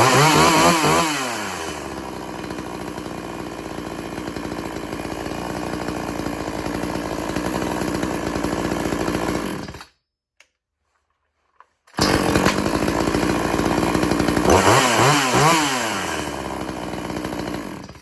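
Old-school two-stroke chainsaw running warmed up: the throttle is blipped so the engine revs up and down quickly, then it settles to a steady idle. The sound drops out for about two seconds, then the saw is heard again, revved in quick blips and easing back to idle.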